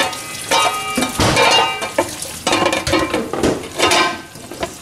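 Metal pot lid clanking and scraping repeatedly against the rim of a frying pan as it is worked into place, ringing with each knock, over the sizzle of lobster in tomato sauce frying underneath.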